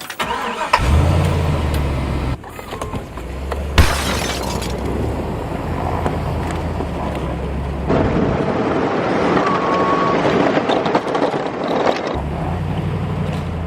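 A pickup truck's engine running steadily with a low hum, a sharp knock about four seconds in, then a rougher, noisier stretch before the steady hum returns near the end.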